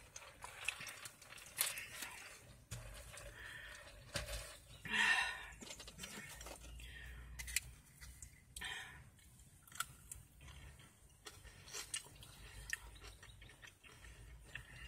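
Close-up eating sounds: chewing with scattered clicks and crunches as she eats from a styrofoam cup. A brief pitched sound comes about five seconds in.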